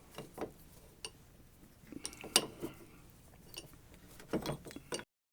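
Scattered light metallic clicks and clinks of hand tools and small metal parts being handled on a workbench, the loudest about two and a half seconds in.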